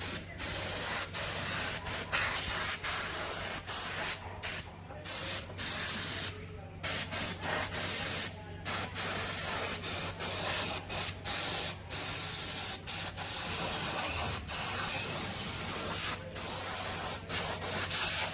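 Paint being sprayed: a loud hiss that stops and starts many times in short bursts with brief breaks between them.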